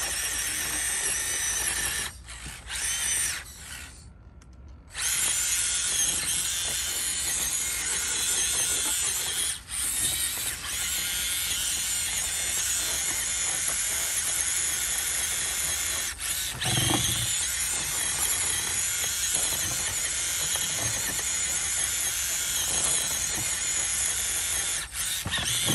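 Electric motor and geared drivetrain of a 1/10-scale Losi Night Crawler SE rock crawler whining steadily as it crawls over blocks, cutting out a few times early on and stopping for about a second around four seconds in. A brief low thud comes about two-thirds of the way through.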